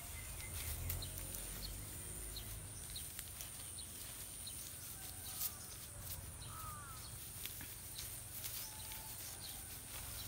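Hands scraping and patting loose garden soil, with scattered soft scrapes and clicks. A few short bird chirps come through about two thirds of the way in, over a steady high-pitched whine from the surroundings.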